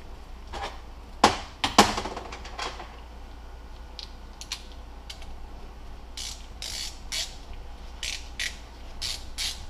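Two sharp knocks about a second in, then a hand socket ratchet clicking in short strokes, about two a second, as the transfer case side cover bolts are run in before being snugged down.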